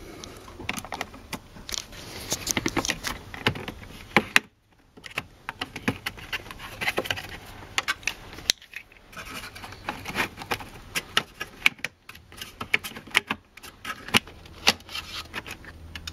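Hard plastic dashboard trim and the instrument cluster housing of a Mercedes-Benz W202 C-Class clicking, rattling and scraping as they are pried with a small screwdriver and worked loose from their retaining tabs. There are many quick irregular clicks over rubbing and handling noise, broken by two short near-silent gaps.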